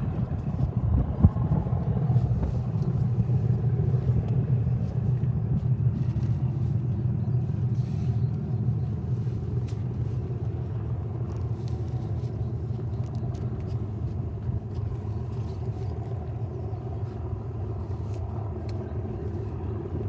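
A steady low engine rumble, loudest about a second in and then slowly easing off.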